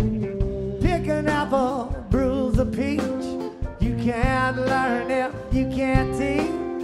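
A live rock band playing an instrumental passage: drums and a steady low accompaniment under a lead melody of wavering notes that bend up and down.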